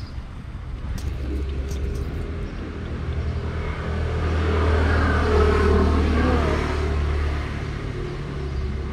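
A car passing on the street, its engine and tyre rumble swelling to a peak about five to six seconds in and then fading.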